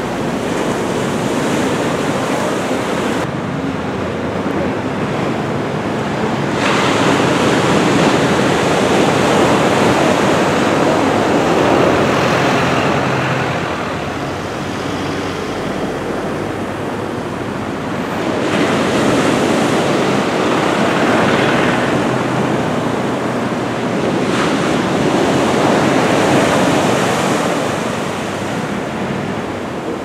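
Ocean surf from a typhoon swell: waves breaking and washing up the beach in long rising and falling surges, three of them in turn, with wind noise on the microphone.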